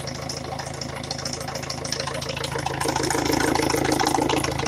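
Peugeot 307 1.6 HDi four-cylinder turbodiesel idling with a rhythmic knock, a 'lyap-lyap-lyap' that the mechanic takes for a knocking piston. It gets louder about halfway through.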